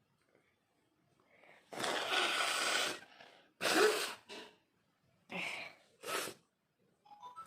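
A person blowing their nose hard into a cloth, clearing a runny nose: one long blow about two seconds in, then four shorter blows.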